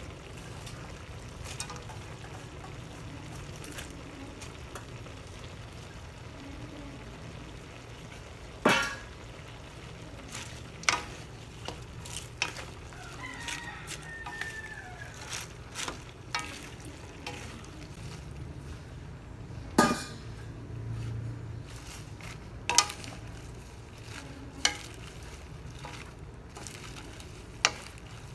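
Stir fry of chicken, cabbage and vegetables being stirred in a pan: a utensil scrapes and now and then knocks sharply against the pan over a steady low background noise.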